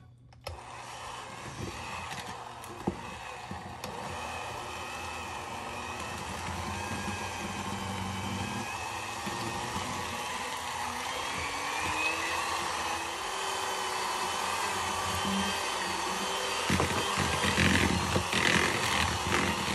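Electric hand mixer starting up and running steadily, its beaters churning thick cookie dough as eggs are mixed in. The motor pitch rises a little partway through, and near the end there are a few knocks from the beaters in the bowl.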